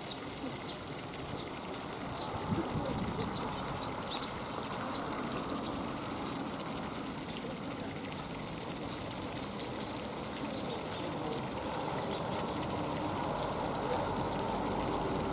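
Water running or gushing steadily, with short high chirps repeating about once a second over it.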